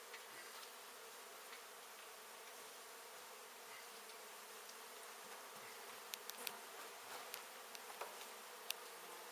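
A mass of honey bees from a large exposed colony buzzing steadily. A few sharp clicks come in the second half.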